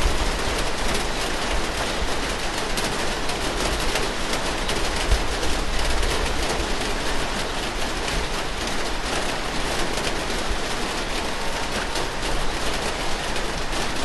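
Steady rain falling, a dense crackling patter of drops over a constant hiss.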